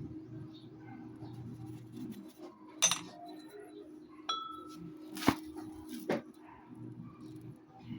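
Metal tools or parts clinking, four sharp clinks a second or so apart, one ringing on briefly like struck metal, over a steady low hum.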